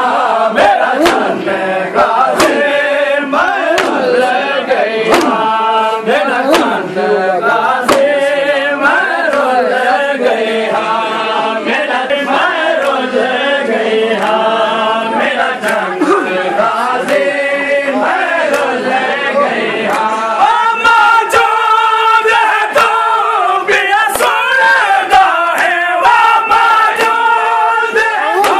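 A group of men chanting a Muharram noha in unison, with sharp hand slaps on the chest (matam) struck again and again throughout.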